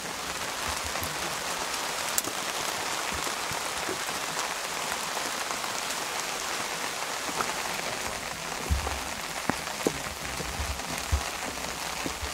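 Steady rain falling, an even hiss with scattered drop clicks, and a few dull low thumps in the second half.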